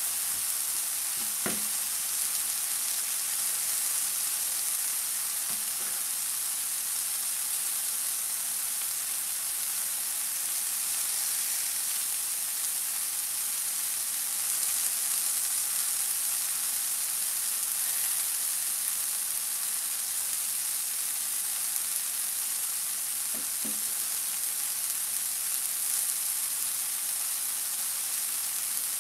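Sliced mushrooms frying in oil in two pans, a steady sizzling hiss as they brown, with a couple of faint knocks.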